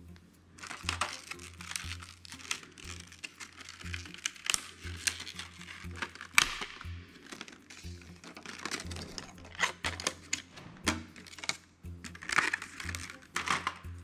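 Clear plastic clamshell packaging crinkling and clicking as it is handled and snapped open, with a sharp snap about six seconds in, over background music.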